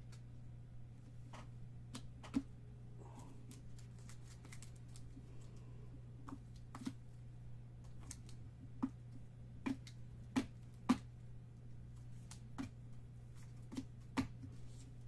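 Sleeved trading cards and rigid plastic top loaders being handled and stacked on a table: scattered, irregular light clicks and taps, with a steady low hum underneath.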